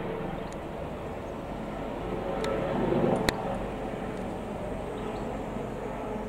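Eurocopter EC135 T3 helicopter, a twin-turbine machine with a shrouded Fenestron tail rotor, flying overhead: a steady rotor and engine drone that swells a little about three seconds in, with a sharp click just after.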